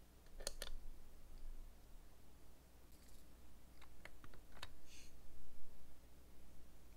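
Light clicks and taps from nails and small nail-art tools being handled: a pair of clicks near the start, a quick run of clicks around four seconds in, then a brief scratchy rustle.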